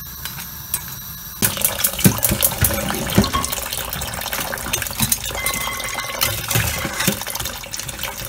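Tap water running and splashing into a plastic bowl of iced water in a stainless steel sink, with freshly boiled crayfish tipped in from a pot, clicking and knocking. The water starts about a second and a half in, after a quieter hiss.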